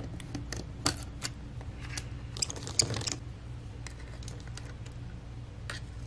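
Scattered light clicks and taps of small hand tools and plastic and metal parts as the power-button board is worked loose and lifted out of an opened Dell laptop, with a busier run of clicks about halfway through.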